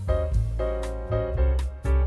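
Background instrumental music, piano-led over a bass line, with notes struck every fraction of a second.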